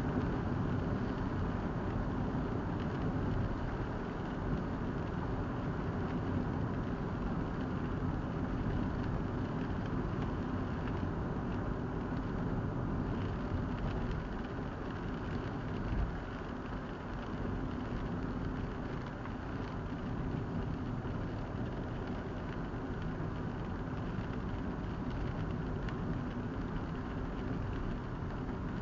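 Steady road noise heard from inside a moving car: engine and tyres running on a wet road surface, with one brief knock about halfway through.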